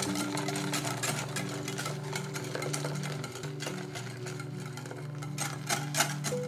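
Wire whisk beating a custard mixture in a glass bowl, a fast irregular clatter of the wires against the glass with a couple of louder clacks near the end, while hot milk and cream are poured in. Soft background music plays underneath.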